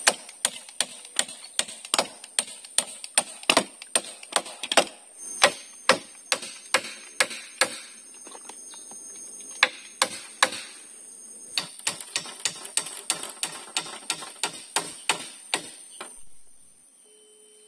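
Claw hammer driving nails into wooden shelter poles: a steady run of sharp blows, about two to three a second. The blows pause briefly about halfway and stop shortly before the end.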